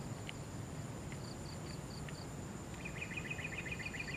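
Insects chirping in marsh grass: a steady high buzz with a repeating pulsed chirp of about five beats a second. About three seconds in, a rapid chattering trill of a dozen or so quick notes joins.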